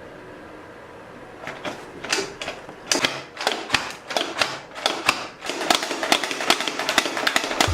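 Manual vegetable chopper clicking as it is worked to chop vegetables: sharp clacks that start about a second and a half in, spaced at first, then coming fast and steadily near the end.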